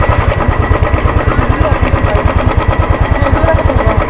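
Motorcycle engine running at low speed as the bike is ridden slowly, with an even, rapid pulsing from the exhaust.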